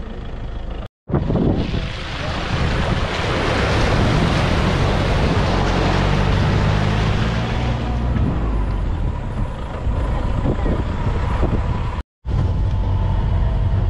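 Safari jeep driving through a flooded sandy track: its tyres splash loudly through the water for several seconds over the engine, then the engine and tyres run on more steadily. The sound drops out briefly twice.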